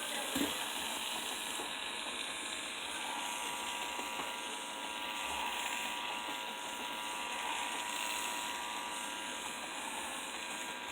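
Electric pet nail grinder running steadily with an even, high whirring hum, with a brief soft knock just after the start.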